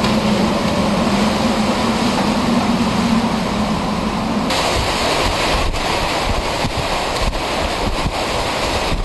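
Hurricane-force wind and rain blasting the microphone, with a steady low hum through the first half. About halfway in the sound changes and the wind is broken by a series of sharp cracks as a storm-battered power line arcs and throws sparks.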